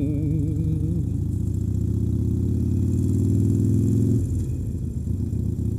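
Harley-Davidson Sportster Forty-Eight's air-cooled V-twin running under way at a steady cruising pace. About four seconds in the throttle is eased off and the engine note drops back and softens, then picks up again near the end.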